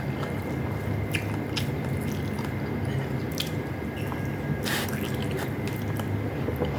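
Close-miked eating sounds: a person chewing, with scattered wet mouth clicks and smacks, one longer smack near two-thirds of the way through, over a steady low hum.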